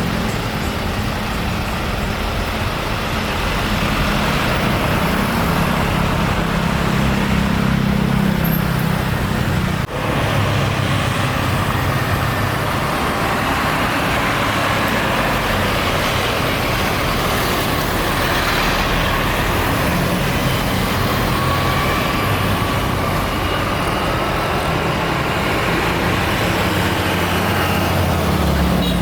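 Jet airliner engines running on the ground: a loud, steady roar with a low hum underneath, broken by a brief dip about ten seconds in.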